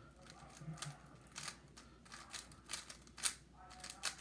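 Angstrom Weilong WR M V10 3x3 speedcube being turned fast in a speedsolve: irregular plastic clacks of the layers snapping round, several a second.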